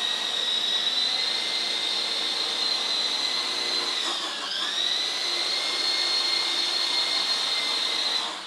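Small electric coaxial RC helicopter's motors and rotors whining steadily in a low hover. About four seconds in the pitch dips briefly and comes back up as the throttle is eased and reapplied, and near the end the whine falls away as the motors spool down.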